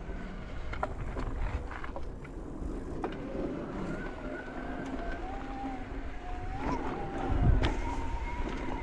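Electric mountain bike's motor whining under pedal assist, its pitch wandering up and down, over the rumble of tyres on the trail, with a louder low thump about seven and a half seconds in.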